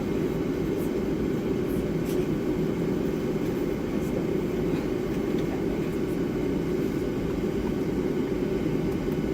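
Boeing 757-300's jet engines idling, heard as a steady low cabin rumble.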